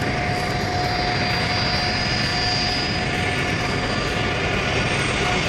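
Tupolev Tu-204 airliner's twin turbofan engines running while it taxis: a steady jet rumble with an even high whine.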